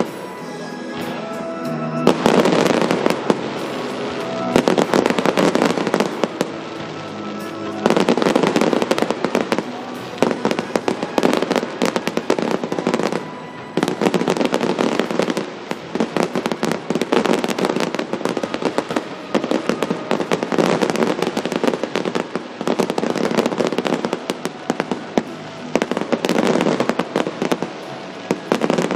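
Fireworks display: dense volleys of crackling bursts and bangs arriving in waves, with music playing underneath. The first couple of seconds are quieter and mostly music before the crackling thickens.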